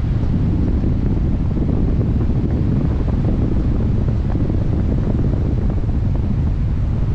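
Wind rushing over the microphone of a hang glider's onboard camera in flight: a loud, steady, low rumble of buffeting air.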